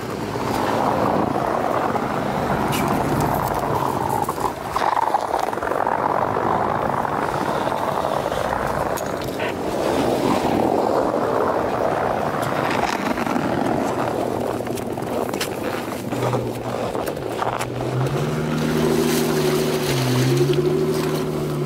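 Off-road Jeep engines running under load with tyres churning and crunching through deep snow. From about 16 s in, a steady engine note comes up, rising and dipping as the throttle changes.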